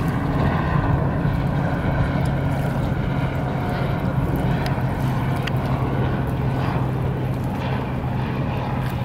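A steady low engine drone, from a distant motorboat or aircraft, holds level throughout. Faint light ticks sit over it, like small wavelets lapping on the pebbles.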